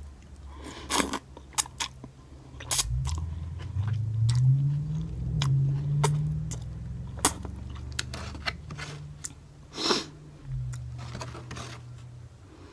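Close-up mouth sounds of eating instant cup noodles off a fork: chewing and slurping, with many short wet smacks and a longer slurp about ten seconds in.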